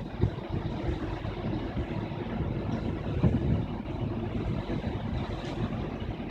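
Steady low rumble of wind on the microphone and the cruise ship under way, swelling slightly now and then.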